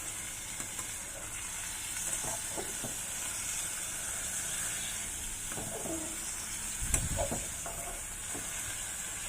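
Tofu and onions frying in hot oil in a pan, a steady sizzle, while a spatula gently stirs with a few light scrapes and knocks. A dull thump about seven seconds in is the loudest moment.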